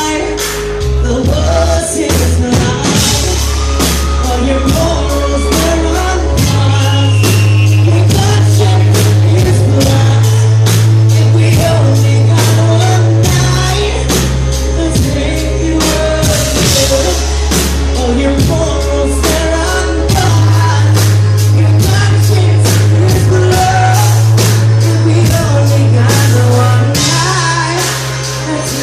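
Live band playing a song with a male lead singer: deep sustained bass notes and a steady drum beat under the singing, loud throughout.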